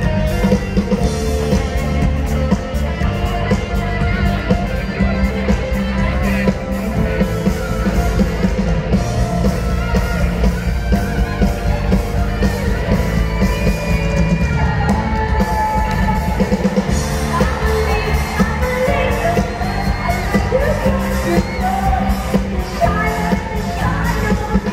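Live band playing pop-rock music with a singer, heard through a large hall's sound system, with shouts from the audience.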